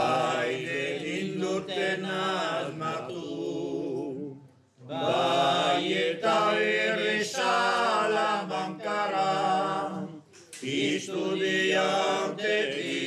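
A group of men singing a cappella, several voices together in long held phrases, with brief breaks for breath about five and ten seconds in.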